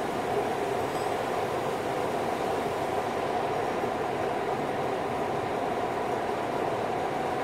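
Steady drone of factory machinery, a constant noise with a faint wavering hum running through it.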